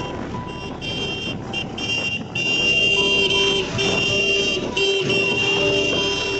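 Motorcycle running through town traffic, with vehicle horns honking again and again: short toots early on, then longer blasts from about two and a half seconds in.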